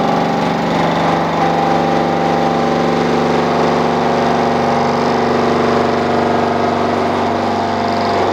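Milling machine with its head tilted, an end mill cutting a tooth gash into a steel flywheel ring gear: a steady, loud run with several held tones. The cutter is working through teeth that were welded up in an earlier repair.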